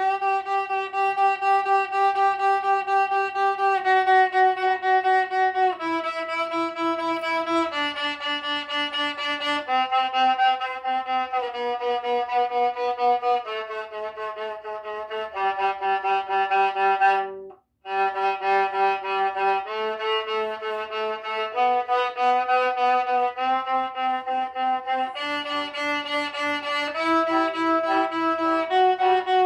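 Violin played slowly through a G major scale, one long bowed note per step, each held about one to two seconds, the notes stepping down and back up in pitch. There is a brief break in the playing a little over halfway through.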